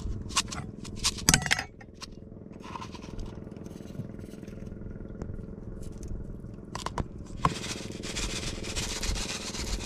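Kitchen handling while seasoning a plate of raw fish: a quick run of clicks and a scrape from a small plastic tub and its lid in the first second and a half. After about seven seconds, a plastic seasoning sachet crinkles and rustles as it is shaken out over the plate. A steady low hum lies underneath.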